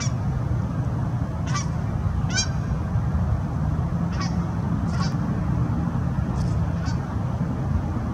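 Short, high bird calls, about eight of them at uneven intervals, over a steady low rumble.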